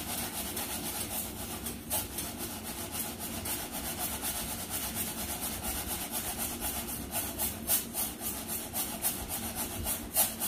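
A spoon stirring food in a pan on the stove, scraping across the bottom in a steady run of rasping strokes that become more distinct and regular in the second half.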